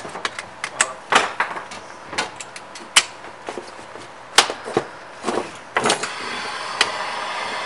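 Clicks and knocks of thin copper sheet pieces and a pair of locking pliers as the pieces are pressed together and clamped at the seam, with several sharper knocks. A steady hiss comes in about six seconds in.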